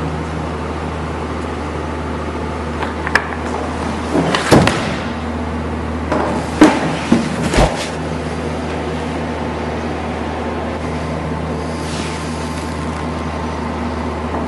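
A few scattered knocks, thuds and short rustles from a person moving through an iaido kata with a sword, clustered in the first half, over a steady low hum of room ventilation.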